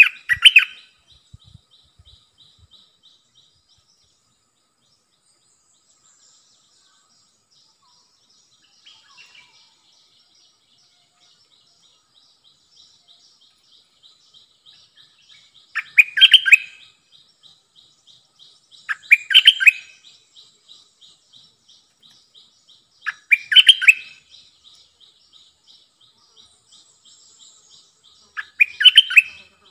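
Stripe-throated bulbul singing: five short, loud song phrases several seconds apart, one at the start and the rest in the second half. A faint, fast ticking trill runs under most of it.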